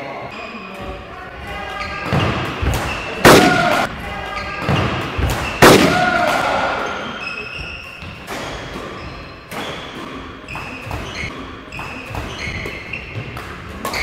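Badminton doubles rally on an indoor court: sharp racket hits on the shuttlecock and short squeaks of court shoes on the floor, with two loud hits about three and six seconds in.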